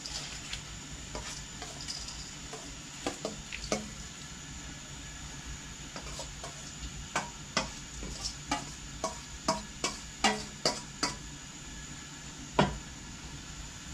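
A spoon stirring in a cooking pot, clinking and knocking against its side in a run of short sharp clicks. The clicks come thickest in the second half, with one loudest knock near the end.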